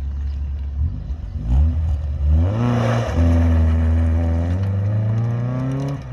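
Saturn car's engine idling, then revved hard about a second in: the revs climb in steps, hold high while slowly rising, and drop off sharply near the end.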